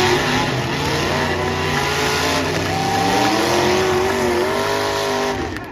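Demolition derby car engines revving hard, their pitch rising and falling as the cars accelerate and back off.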